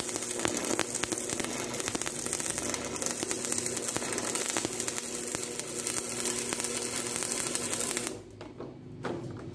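Electric arc welding on steel: the arc's steady crackling sizzle, dense with fine pops, over a steady hum. It cuts off abruptly about eight seconds in as the arc is broken, leaving a quieter hum and a soft knock.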